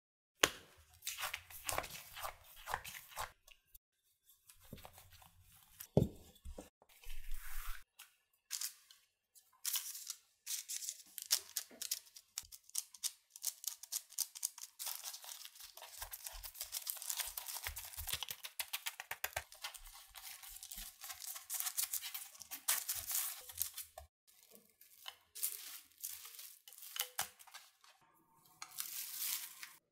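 Food being worked by hand in a kitchen: stop-start scratching and crunching, with short gaps at first and a long, dense stretch through the middle.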